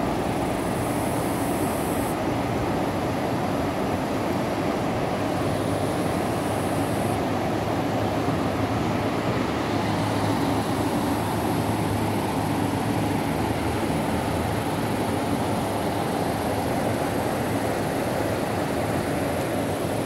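River water rushing over shallow rocky rapids: a steady, even wash of water noise with no breaks.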